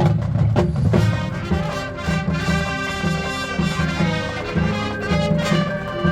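Marching band's brass section playing sustained chords over low brass, with a few percussion strokes about a second in.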